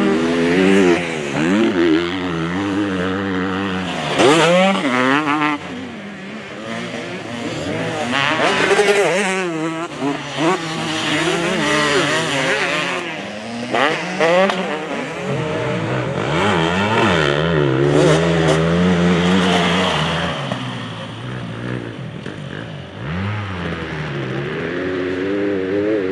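2023 KTM 250 SX two-stroke motocross engine revving hard and dropping back, over and over, its pitch rising and falling with the throttle.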